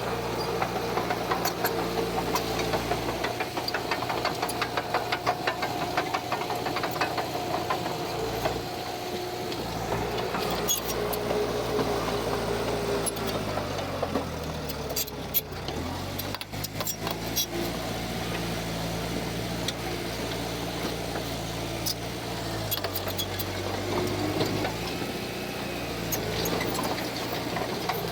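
Diesel engine of heavy earthmoving machinery running steadily under load. Its pitch drops about halfway through and then rises again, with clanking and rattling over it.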